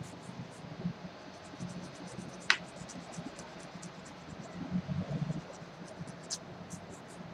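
Small metal manicure tool scraping and ticking against fingernails in quick light strokes, with one sharp click about two and a half seconds in and a smaller one near the end.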